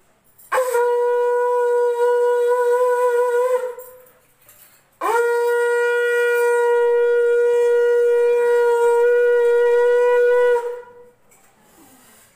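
Conch shell (shankh) blown in two long, steady blasts of one held pitch: the first lasting about three seconds, the second, after a short pause, about five and a half seconds.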